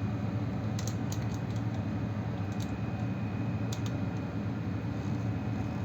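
A few light, sharp clicks and ticks of hand tools and wire being worked on the terminals of an electrical contactor, over a steady low background hum.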